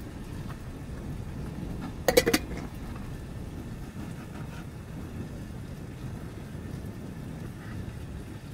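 A quick run of clinks from kitchenware, like a utensil knocking on a dish or pan, about two seconds in, over a steady low rumble.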